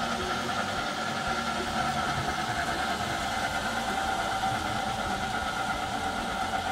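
A machine running with a steady, even hum.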